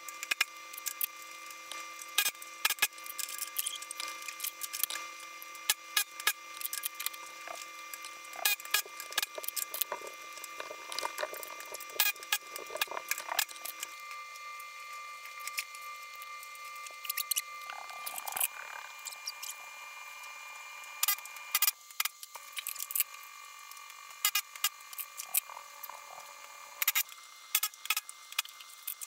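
Pneumatic rivet gun firing many short bursts as solid rivets are set in aluminium stabilizer skins and stringers, with tool clicks and clatter between, the audio sped up with the footage. A steady high hum runs underneath.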